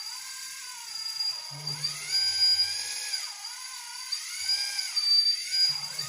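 Electric hydraulic pump of an RC Liebherr 926 compact excavator model whining as it is worked. The whine rises and falls in pitch about four times as the hydraulic functions are driven.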